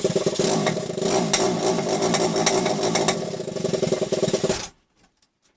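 Small dirt bike engine running steadily after its faulty kill switch was bypassed, then cutting off suddenly near the end.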